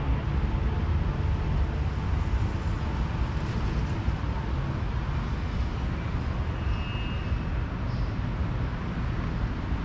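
Steady outdoor background noise, a low rumble that flutters constantly, with no distinct event standing out.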